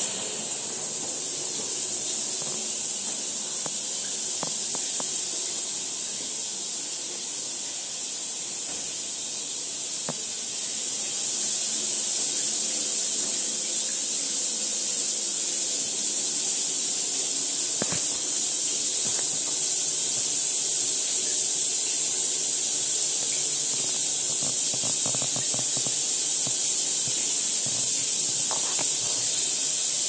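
Grohe Rainshower 27195000 overhead shower head running: a steady hiss of water streams falling from the rain head, getting a little louder about a third of the way through.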